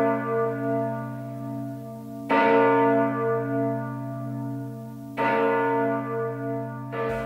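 A large bell tolling slowly, struck three times about three seconds apart. Each stroke rings on and fades with a slow pulsing hum.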